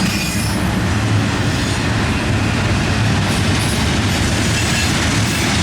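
A long double-stack intermodal freight train rolling past at speed, a loud steady rumble of the container cars' wheels on the rail.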